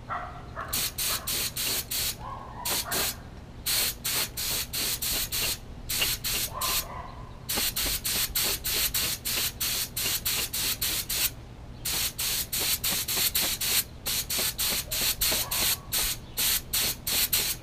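Compressed-air paint spray gun spraying gloss black acrylic enamel in runs of short, rapid hissing bursts, about five a second, with brief pauses between runs.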